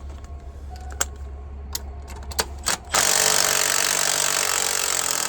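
A few metal clicks as the socket and extension are set onto the spark plug, then about three seconds in an impact wrench starts hammering steadily to break the plug loose.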